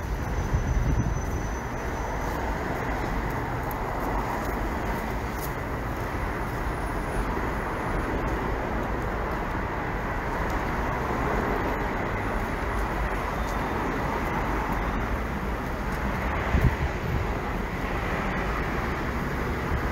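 Steady city street ambience: a continuous rumble and rush of passing traffic.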